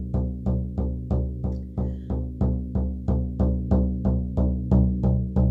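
Large hand-held frame drum beaten with a padded beater in a steady, even rhythm, each stroke giving a deep ringing tone that dies away before the next.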